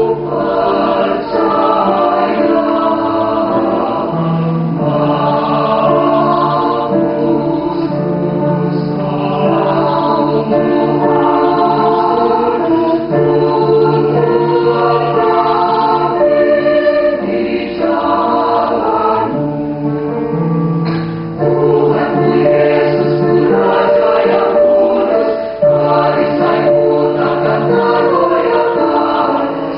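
Mixed choir of men's and women's voices singing a sacred song in parts, in sustained chords, with two short breaks between phrases in the second half.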